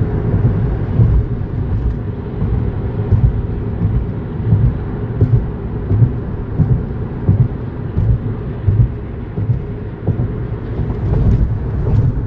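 Road noise inside a moving car's cabin: a steady low rumble of tyres and engine, with repeated low thumps.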